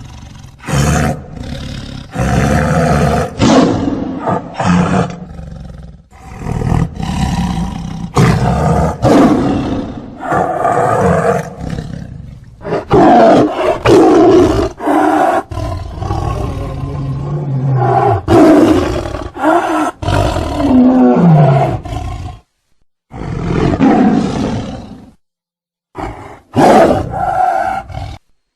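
A large animal's loud, deep, rough roaring calls, one after another, with abrupt cuts to silence between some of them; one call about 20 seconds in falls in pitch.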